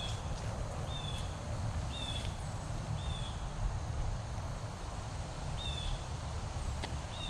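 Wind rumbling on the microphone outdoors, with a short high chirp from a small creature repeated about once a second, pausing for a couple of seconds midway.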